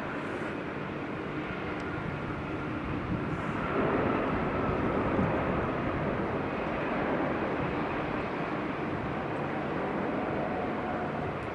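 Jet airliner landing, its engine noise a steady rumble with a thin whine over it, swelling about four seconds in and then easing slowly.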